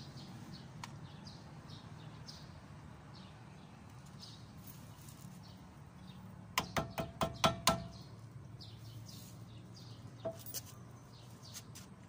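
A quick run of about six sharp metallic taps a little past the middle, and one more about two and a half seconds later: a hammer tapping metal at a truck's steering knuckle during a king pin installation. Birds chirp faintly in the background over a low steady hum.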